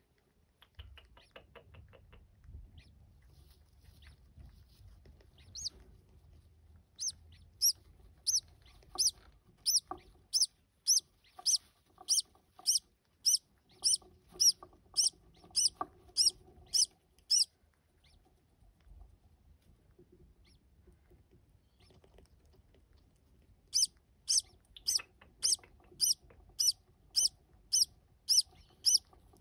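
Newly hatched green-cheeked conure chick cheeping in a steady rhythm, about two high peeps a second, while its mother feeds it: food-begging calls. The peeps come in two long runs with a pause of several seconds between them.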